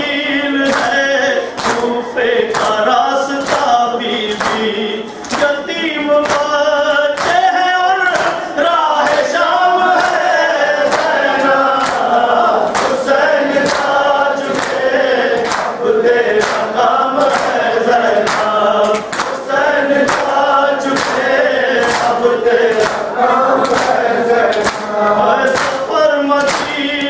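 Men's voices chanting a Shia noha together, with regular hand slaps on the chest (matam) keeping the beat.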